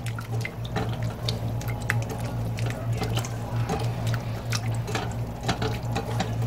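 Silicone spatula stirring cream sauce with broccoli in a stainless steel pan: wet squishing and sloshing with many small irregular clicks, over a steady low hum.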